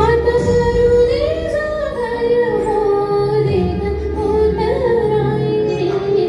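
Female voice singing a Marathi song, a sustained wavering melody over steady instrumental accompaniment.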